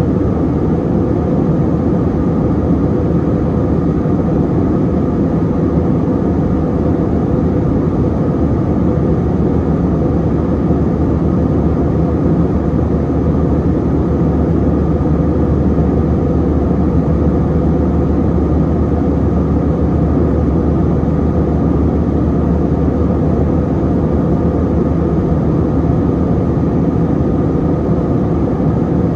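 Steady jet engine and airflow noise heard inside the cabin of an Airbus A321-200 airliner, a constant low rumble with a faint hum in it and no change in level.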